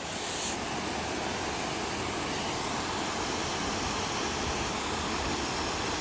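Steady rushing of a small waterfall cascading over rock into a pool.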